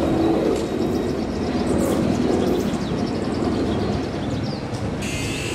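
Alstom X'Trapolis Modular electric multiple unit creeping forward at walking pace: a steady low rumble of its running gear and wheels on the track.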